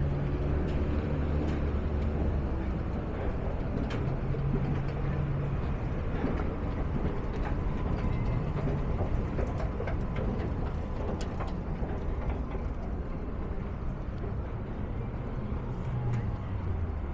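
City street traffic: vehicle engines running and passing, with a low engine hum that swells and fades several times.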